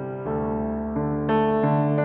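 Background music: soft piano playing sustained chords that change every half second or so.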